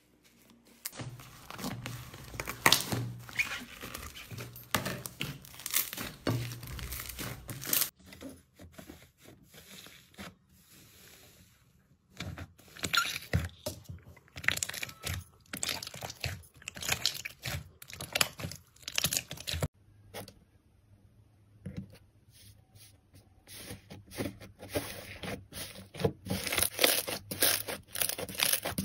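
Hands squeezing, stretching and pulling apart slime: close, sticky crackling and tearing sounds in dense runs, with short lulls between handfuls.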